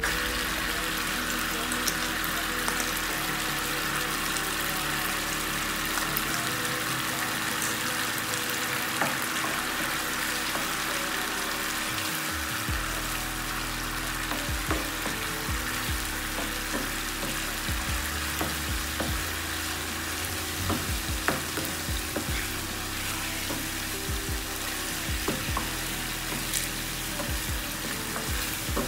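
Tomato sauce sizzling in a frying pan, with a wooden spatula stirring and scraping through it as egg is mixed in. The taps and scrapes come more often in the second half.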